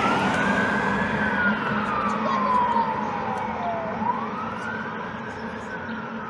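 Fire engine siren wailing, its pitch sweeping slowly up and down about once every four seconds, gradually growing fainter.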